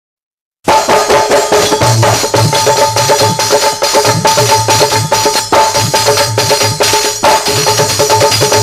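Instrumental intro of a Hindi film song: tambourine and drums beat a steady rhythm over held instrument notes, starting about half a second in.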